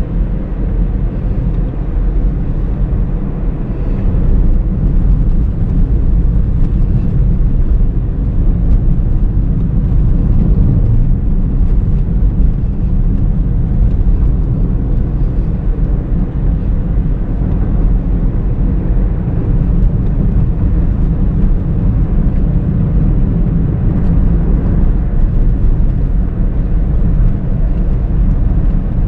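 Steady low rumble of a 2019 Honda Brio V CVT on the move: the engine and road noise of the car being driven, getting a little louder about four seconds in.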